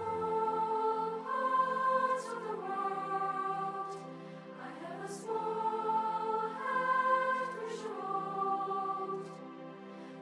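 Slow background music sung by a choir: long held chords that change every second or two.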